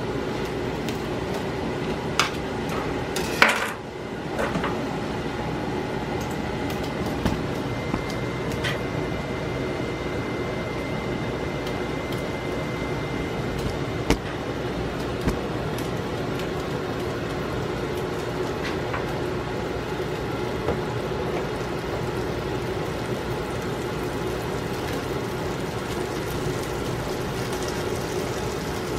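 Butter sizzling as it melts in a nonstick frying pan on high heat, a steady hiss. A few sharp clicks of a spatula against the pan come in the first four seconds, the loudest about three and a half seconds in, with a couple more later.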